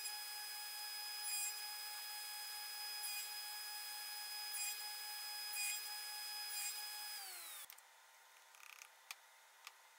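Table saw with a dado blade stack running at a steady whine, with a short rasp every second or so as the blades bite into the wood blocks. About seven and a half seconds in the saw is switched off and its pitch falls as it winds down, leaving a few light clicks as a tape measure is handled.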